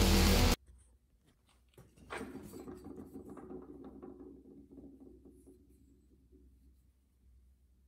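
Background music cuts off abruptly just after the start. About two seconds in comes a knock, then a few seconds of scraping and rubbing with a faint ring that fade out: handling noise of a handleless steel autobody hammer head being picked up and turned in the hand.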